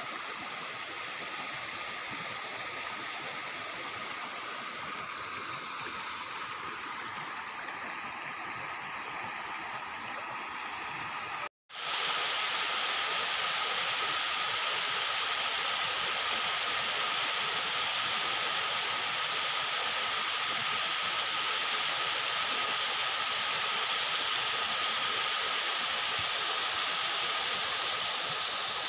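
Steady rushing of shallow water flowing over stones and weeds. After a brief break about a third of the way in, a louder steady rush of water spilling over a concrete weir.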